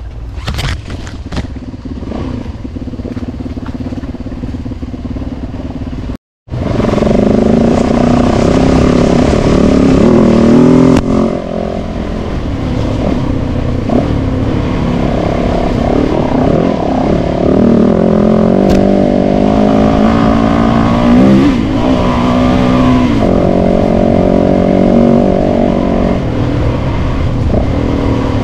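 Trail motorcycle engines running along a dirt lane, their pitch rising and falling with the throttle. About six seconds in the sound drops out for a moment and comes back louder, with several bikes' engines heard together.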